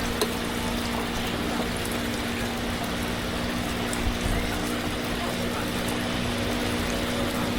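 Hot oil sizzling steadily in a deep fryer, with a steady low hum underneath.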